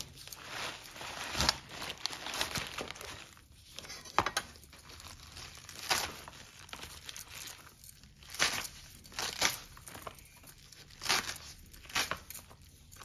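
Radish greens being finely chopped with a blade: the leaves rustle and crunch, with a sharp cutting stroke every second or two.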